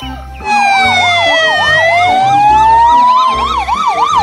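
Ambulance sirens start loudly about half a second in: a fast rising-and-falling warble layered over a slow wail that falls and then rises again. A steady beat of background music runs underneath.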